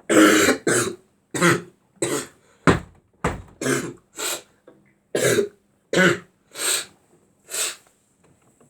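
A person with a bad cough coughing in a fit: about a dozen short, separate coughs over some eight seconds, the first the loudest.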